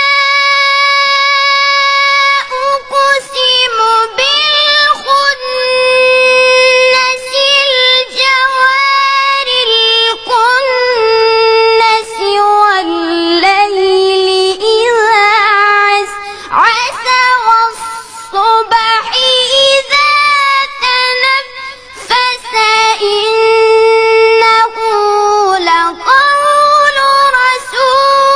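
A boy's high voice chanting Quran recitation in the melodic tajweed style, holding long notes and winding through ornamented turns, with short breaths between phrases.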